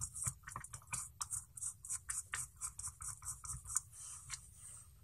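Light clicks, taps and scrapes of hands handling carbon-fibre frame plates and small screws, a dozen or so small irregular ticks.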